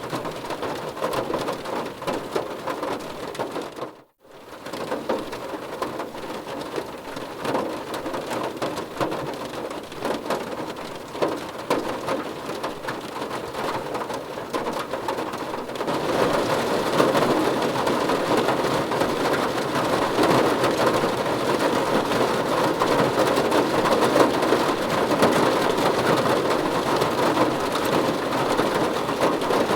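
Rain falling on a car's roof and windows, heard from inside the cabin: a dense patter of drops. The sound cuts out for a moment about four seconds in, and the rain is heavier from about halfway through.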